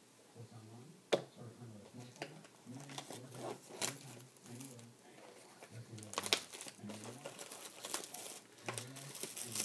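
Plastic wrapping crinkling and tearing as a sealed box of trading cards is opened by hand. There are scattered sharp clicks and rustles.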